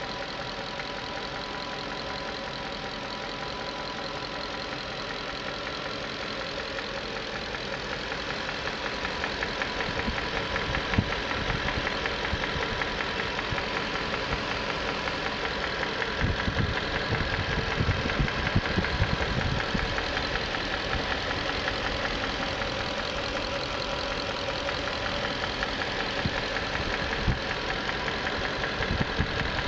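1994 Infiniti Q45's 4.5-litre V8 idling with a fast, steady ticking and clatter, which the owner puts down to valve and timing chain noise. It gets louder about a third of the way in, with a few sharper knocks standing out.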